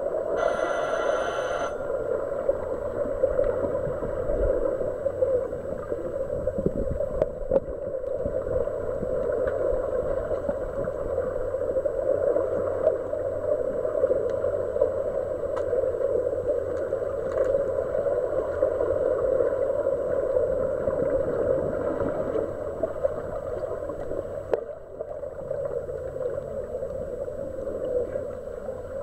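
Pool water heard through a submerged microphone: a steady hollow rush of moving water and bubbles from swimmers kicking, with small scattered clicks and knocks. A pitched electronic beep fades out in the first second and a half.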